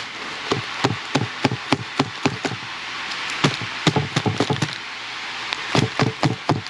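Seed-starting tray of cell packs filled with potting soil being bounced down on a hard surface to settle the soil: a run of short, irregular knocks that come in loose clusters.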